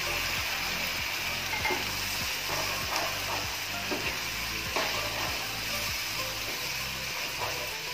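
Flat spatula stirring and scraping a watery masala gravy in a nonstick frying pan, with irregular scrapes over the steady sizzle of the hot gravy.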